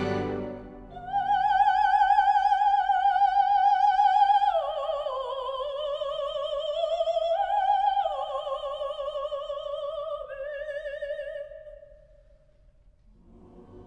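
Solo soprano singing a slow "Amen" with a wide vibrato, alone and unaccompanied, the line stepping down in pitch and fading out about twelve seconds in. A soft, low sustained chord enters near the end.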